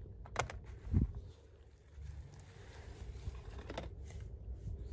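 A plastic toy pistol being handled and set down in a plastic basket: two light knocks, about half a second and a second in, then faint rustling of grass being brushed by hand.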